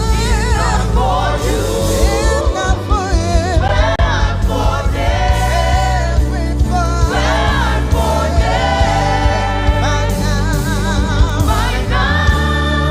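Gospel music: singing with wide vibrato over a steady bass line and band, with a regular beat.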